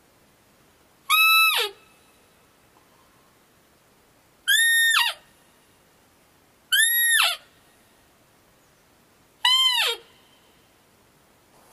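A roe deer call blown four times, each a clear piping note of about half a second that drops in pitch as it ends, the middle two pitched higher than the first and last. It imitates a roe doe's piping, used to lure in a buck.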